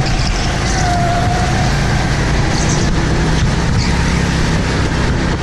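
Go-kart engine running hard at racing speed, heard from onboard the kart, steady throughout with a broad rushing noise over it.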